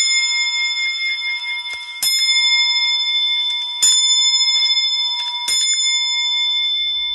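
A single clock bell struck at a slow, even pace, about every two seconds. Each stroke rings on long and fades slowly, with the same set of tones each time. After the stroke just before the start, three more strokes fall about 2, 4 and 5.5 seconds in.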